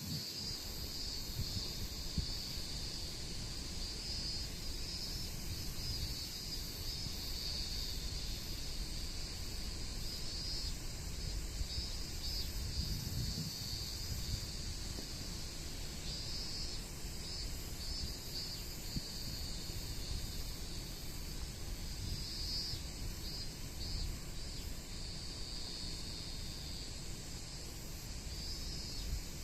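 Insects chirring steadily in a high, slightly pulsing drone, with wind buffeting the microphone in a low rumble.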